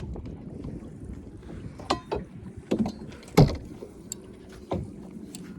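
A few sharp knocks and clatters in a small boat, the loudest about halfway through, over a low rumble of wind on the microphone.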